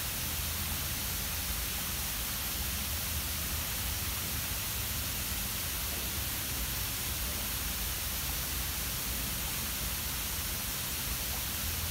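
Steady hiss with a low rumble underneath, unchanging throughout, with no distinct events.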